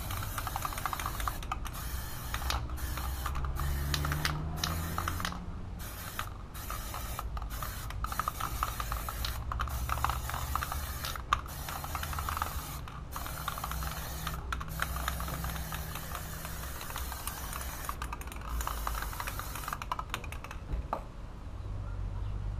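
Aerosol spray can hissing as matte black paint is sprayed onto a car wheel rim, in long bursts with many short breaks between them; the spraying tails off near the end.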